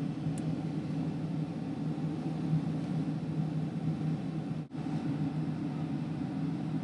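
Steady low drone of an airliner cabin in flight, with a constant hum; it drops out for an instant about two-thirds of the way through.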